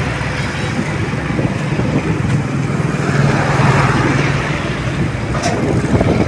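Street traffic noise, with a vehicle engine running steadily.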